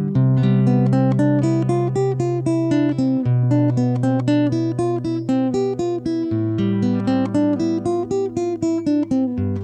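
Instrumental passage of a song: acoustic guitar playing quick plucked notes over held low notes that change every few seconds.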